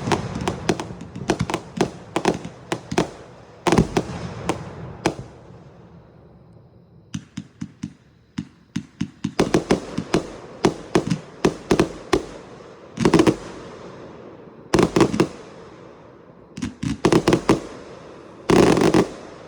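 A 225-shot firework cake firing: rapid volleys of sharp bangs, a lull about six seconds in, then several heavy clustered bursts, the last and loudest near the end.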